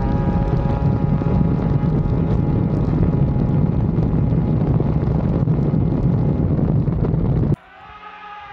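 Arctic Cat Thundercat 1000 snowmobile's three-cylinder two-stroke engine running at high rpm on a top-speed run, heard on board with heavy wind noise on the microphone. About seven and a half seconds in it cuts abruptly to a much quieter sled engine heard from far off.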